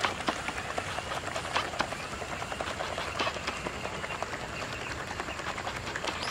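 Plastic-bottle paddle wheel of a small DC-motor toy boat churning the water, a rapid, irregular splashing.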